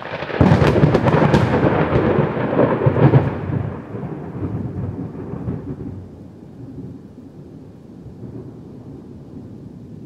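A thunderclap breaks with a sharp crack, with crackling peaks over the first three seconds. It turns into a heavy rumble that dies away by about six seconds. A steady wash of rain continues underneath.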